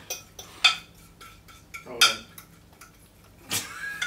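A utensil clinking and scraping against a glass bowl while stirring a runny mix of icing sugar and water, in a few sharp clinks with softer taps between, the loudest about two seconds in.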